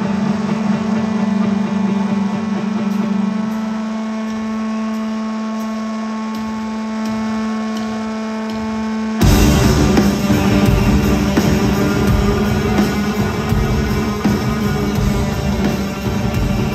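A rock concert's sound system holding a steady drone of several sustained pitches. About nine seconds in, a much louder, fuller wall of sound cuts in abruptly and carries on over the drone.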